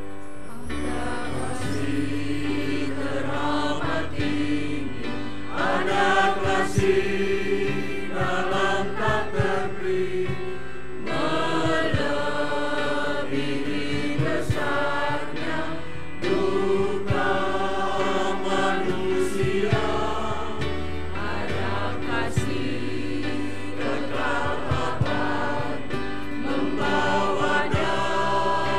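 Mixed church choir singing a hymn in several voice parts, with piano accompaniment underneath.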